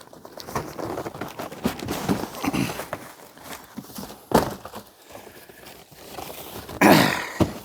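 Cardboard and plastic packaging rustling and crinkling as a chainsaw is handled out of its box, with scattered knocks and scrapes. There is a sharper burst about four seconds in and a louder one near the end.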